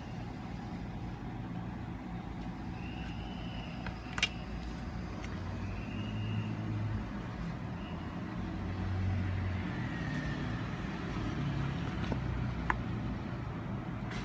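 Steady low rumble of background road traffic, with a few faint brief high-pitched tones and two short sharp clicks, one about four seconds in and one near the end.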